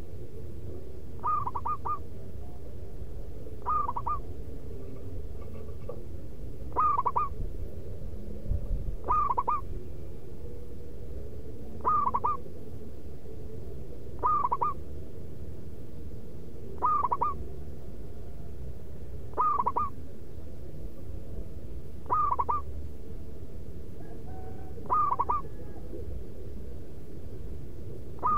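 Local perkutut (zebra dove) kept as a decoy bird, cooing. It repeats a short phrase of a few quick notes about every two and a half seconds, in a steady rhythm.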